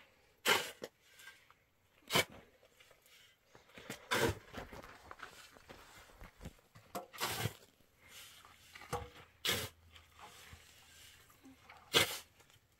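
About six sharp knocks or thuds at irregular intervals, roughly two seconds apart, with faint handling noise between them.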